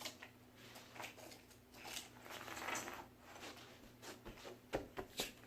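Plastic toy track pieces and Lego bricks being handled: scattered light clicks and rustling, with a few sharper clicks near the end.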